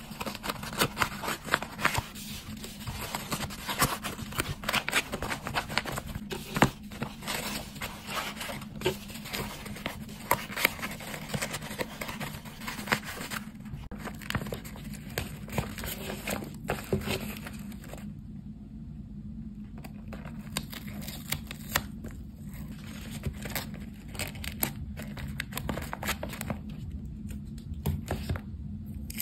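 Tissue paper and thin white paper crinkling and tearing under hands as the tissue is stuffed into a paper box, busy for the first half and thinning to occasional rustles after about fifteen seconds. A steady low hum runs underneath.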